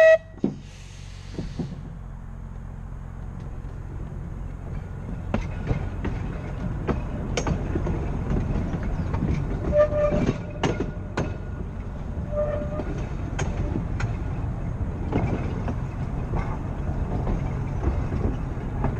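Blackpool Boat tram 606 sounds two short horn blasts right at the start, followed by a brief hiss. The tram then runs along the track with a steady low rumble of motors and wheels that builds, with clicks over the rail joints and a couple of short faint squeals from the wheels.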